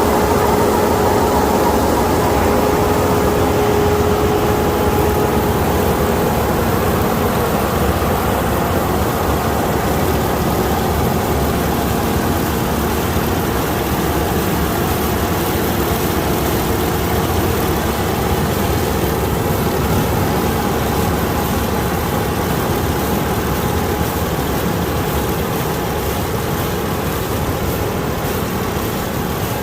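Kukje KC5130 combine harvester running steadily, its engine and machinery giving a continuous heavy noise. A steady whine fades out about six seconds in, and the noise eases slightly toward the end.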